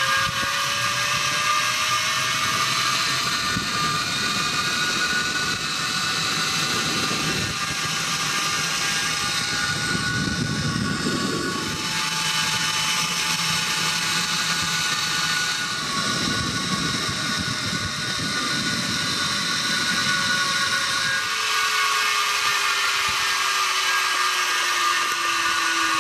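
Zip line trolley pulleys running along the steel cable with a steady high whine. One tone climbs in pitch through the first half as the speed builds, then falls through the second half as the trolley slows, with gusts of wind noise on the microphone.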